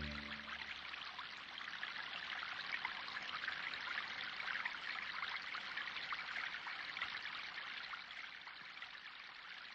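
Faint trickling, running water like a small stream, an even splashing hiss that slowly fades out near the end.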